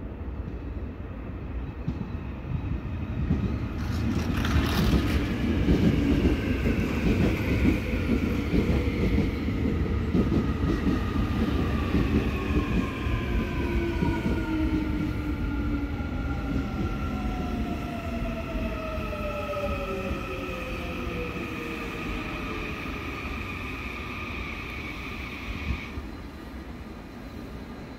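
An electric subway train arrives and brakes to a stop. Its wheels rumble on the rails, and its traction motors give off whining tones that fall steadily in pitch as it slows. The last tone cuts off suddenly near the end as the train stops.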